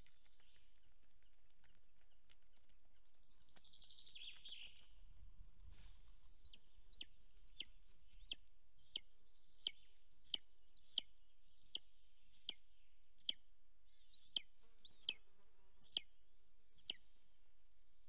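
Golden eagle calling: a series of about fifteen short, sharp, high yelps, roughly one every two-thirds of a second, starting about six seconds in and stopping shortly before the end.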